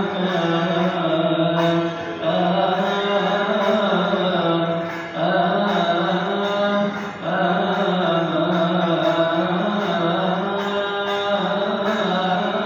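Coptic liturgical chant: one low voice line in unison, sung in long drawn-out notes. Short breaks come every few seconds.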